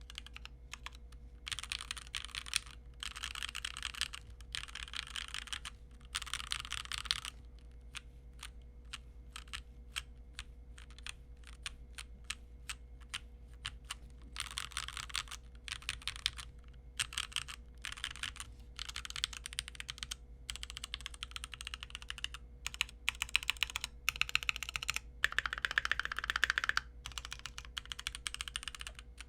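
Typing on a stock Keychron Q1 mechanical keyboard with Gateron G Pro Red linear switches: fast bursts of keystrokes, with a slower run of single key presses in the middle. The board's untreated aluminium case is one that the uploader says still has a pinging metallic ring.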